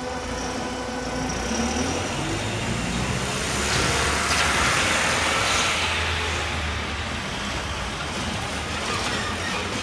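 Road traffic: cars and trucks running past with a steady engine hum, one vehicle passing loudest about four to six seconds in.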